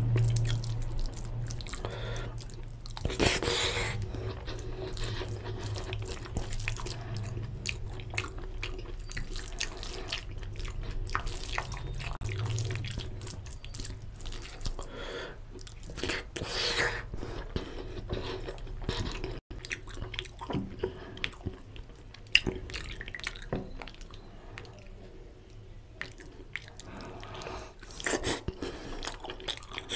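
Close-miked wet chewing and mouth smacking of a person eating mutton curry with pulao by hand, with fingers squishing rice into the gravy. Near the end come louder wet sounds as a mutton marrow bone is sucked.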